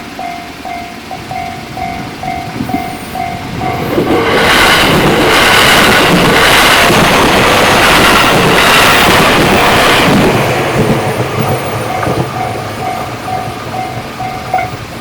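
Japanese railroad crossing warning bell ringing "kan-kan" about twice a second, drowned out by an electric train passing loudly over the crossing for about six seconds from a few seconds in, the bell then heard again as the train fades.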